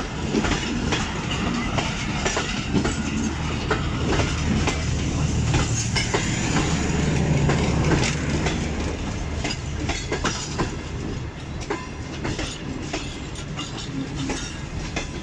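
Passenger coaches rolling past on the station loop line, their wheels clacking irregularly over rail joints over a low rumble, as the train brakes toward a stop. The rumble is strongest midway and eases slightly toward the end.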